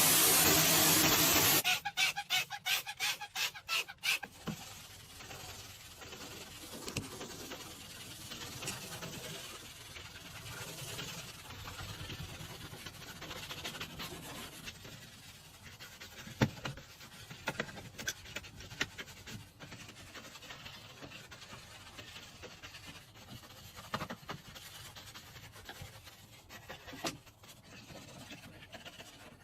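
A loud steady spraying hiss cuts off about two seconds in, followed by a quick run of about eight short spray bursts, then quiet scrubbing and wiping with a few sharp clicks.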